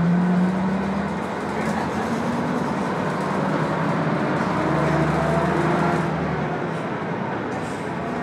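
Diesel engine of a Jelcz 120M city bus with a manual gearbox, heard from inside the passenger cabin while driving. The engine note is loudest at the start, climbs in pitch as it pulls, and eases off about six seconds in.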